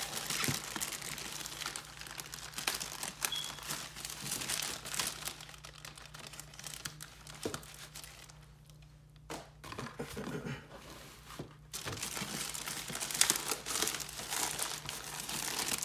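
Packaging being handled and unwrapped: a crinkling, crackling rustle that dies down for a few seconds past the middle and picks up again, over a steady low hum.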